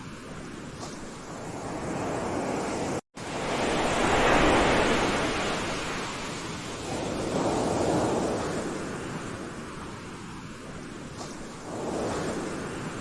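Ocean surf: waves washing in and out, the rush of water swelling and ebbing about every four seconds. A brief gap of silence breaks it about three seconds in.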